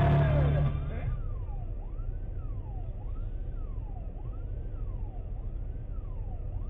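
Music cuts off under a second in, then an electronic siren wails, its pitch rising and falling about once a second, over a steady low vehicle rumble.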